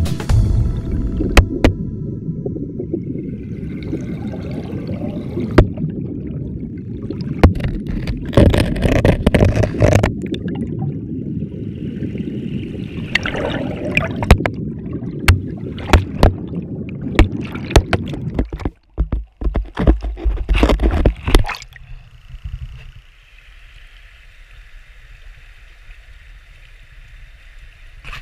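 Muffled low rush of river water heard through a GoPro's underwater housing, broken by many sharp knocks and clicks of the housing. About 22 seconds in it drops to a much quieter hiss, the camera out of the water.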